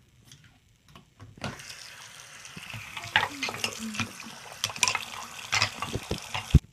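Water running from a bathroom sink tap and splashing as a plastic model horse is rinsed under the stream, with scattered small knocks. The water starts about a second and a half in, and a thump comes near the end.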